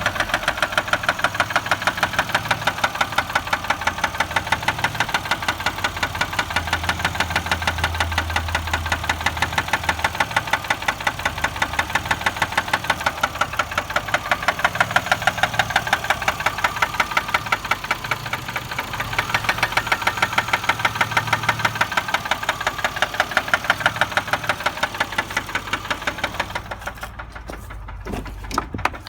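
2004 Chevy Malibu engine running with a rapid, even, metallic knocking; the owner suspects a spun bearing. Near the end the knocking thins out and the sound quietens.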